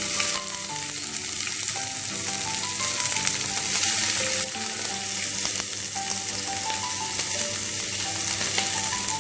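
Chopped onion sizzling and frying in very hot oil in a pan, a steady hiss that surges louder near the start and again about four seconds in.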